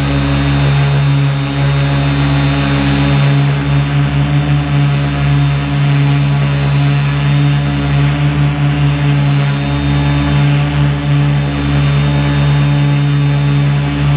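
Small multirotor drone's propellers and motors buzzing steadily as it climbs, heard up close from the drone-mounted camera.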